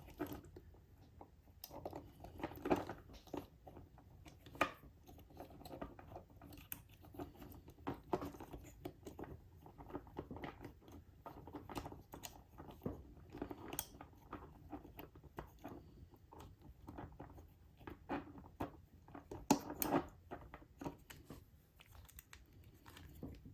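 Irregular small clicks, taps and rustles of plastic and metal parts being handled as a small electric motor with its drive shafts is fitted back into an HO scale model locomotive chassis.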